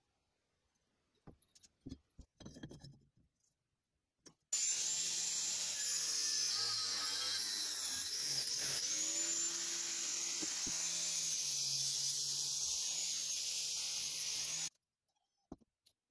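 Craft-Tec angle grinder cutting through a rusty steel tube with a cut-off disc: a loud, steady, high whine with grinding noise for about ten seconds, starting about four seconds in and stopping abruptly. Before it come a few light clicks and rustles of the metal being handled and marked, and a few faint taps near the end.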